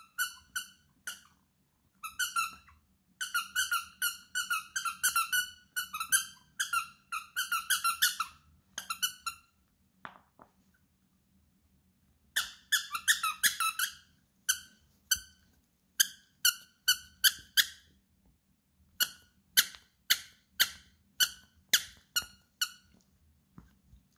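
A plush toy's squeaker squeaking over and over as a puppy chews and bites on it: quick runs of squeaks, a pause of about two seconds near the middle, then single squeaks about every half second.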